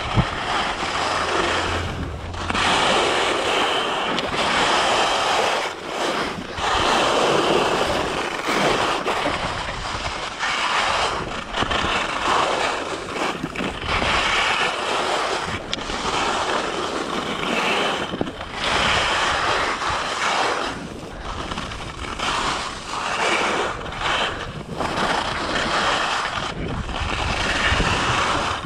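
Skis carving and scraping over groomed snow: a rushing hiss that swells and fades with each turn, roughly every two seconds, mixed with wind on the microphone.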